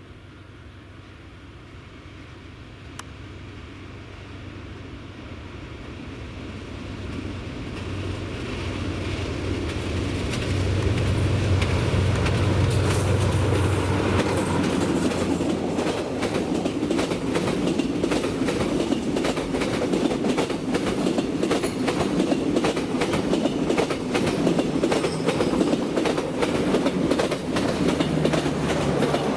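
A passenger train approaches and passes, growing steadily louder over the first ten seconds. A deep locomotive hum peaks about ten seconds in. After that come dense, rapid clicks of the coach wheels over the rail joints as the cars go by.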